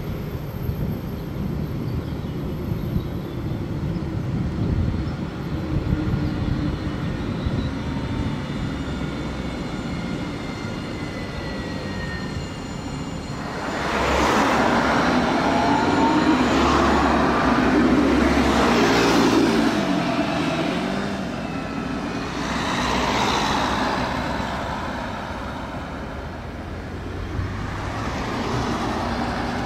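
Tram running on its track: a faint rising motor whine as it pulls away, then a louder rushing swell of passing noise about halfway through, with smaller swells later.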